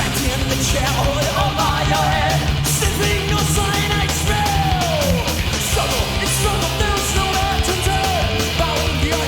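Thrash metal band recording playing loud and dense: distorted electric guitars and bass over fast, driving drums and cymbals, with sliding, falling high lines over the top.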